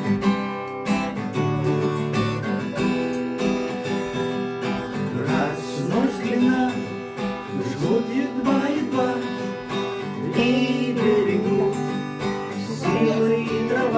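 Acoustic guitar strumming a song's introduction, with a sliding melody over it from about five seconds in.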